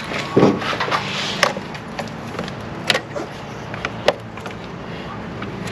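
Four sharp clicks and knocks of hand tools on metal, a second or more apart, as a car battery terminal is reconnected.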